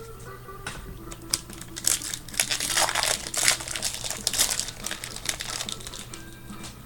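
Crinkling and rustling of a trading-card pack wrapper as a 1999 Stadium Club baseball card pack is opened and handled, a dense crackle that starts about a second in and fades out near the end.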